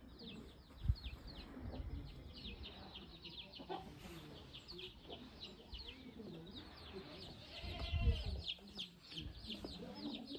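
Chickens peeping in a steady run of short, falling high notes, several a second, with a low thump about a second in and another around eight seconds.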